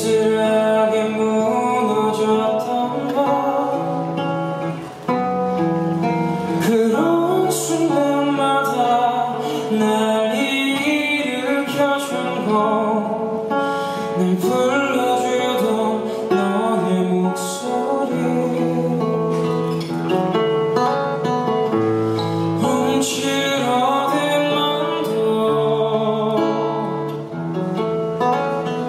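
A man singing a song live into a handheld microphone, accompanied by acoustic guitar.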